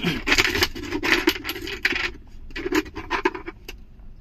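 Small automotive blade fuses and fuse-handling bits being handled: a quick run of light clicks, scrapes and rattles in several short clusters.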